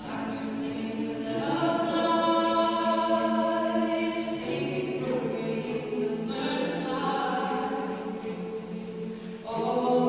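Mixed choir of women's and men's voices singing a cappella in sustained chords, swelling after the first second and pausing briefly about nine and a half seconds in before the next phrase.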